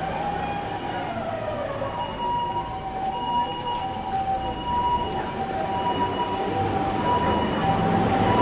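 Japanese ambulance siren sounding its two-tone "pee-po" call, a higher and a lower steady note alternating about once a second, over city traffic noise.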